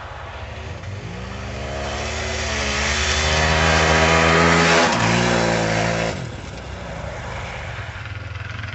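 Aprilia RXV V-twin motorcycle engine revving under hard acceleration on ice, its pitch climbing and getting louder to a peak about four to five seconds in, then bending down and dropping away sharply about six seconds in.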